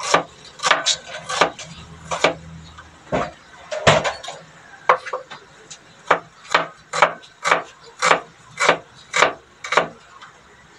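A broad cleaver-style kitchen knife chopping a red onion on a wooden cutting board: a string of sharp chops against the board, irregular at first, then settling into a steady rhythm of about two chops a second.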